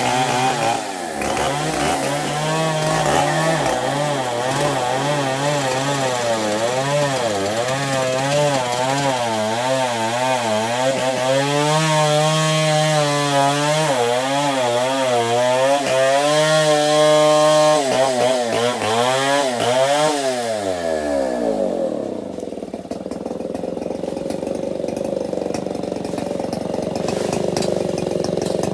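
Two-stroke chainsaw cutting through a baobab trunk at high revs, its pitch wavering up and down as the chain bogs and frees in the wood. About twenty seconds in, the revs drop away and the saw settles to a quieter idle.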